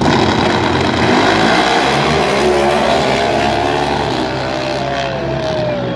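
Two drag-racing motorcycles launching side by side and running down the drag strip at full throttle. The engines come in suddenly and loud, then the note slides down in pitch and slowly eases off as the bikes pull away.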